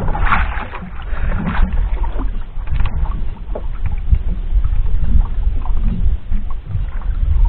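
Wind rumbling over the microphone and water slapping against the hull of a small drifting outrigger boat, rising and falling in uneven gusts.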